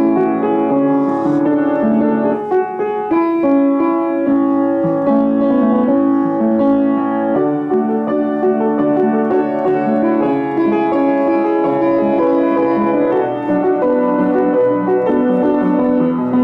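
Piano music with held chords that change every second or two.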